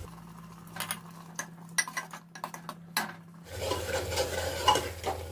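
Steel spoon stirring the masala and peas in an aluminium pressure cooker, scraping and knocking against the pot in a string of sharp clicks. A soft sizzle of the masala frying follows in the second half.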